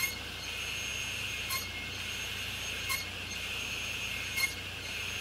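Table saw running steadily while maple and black walnut stock is crosscut into small blocks on a sled. A short knock comes about every one and a half seconds, four times, as each block is cut off.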